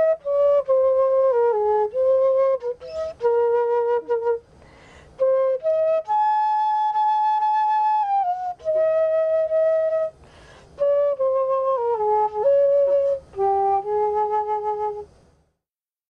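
Solo flute playing a slow melody of held notes, with audible breaths between phrases and one long high note in the middle. The playing stops shortly before the end.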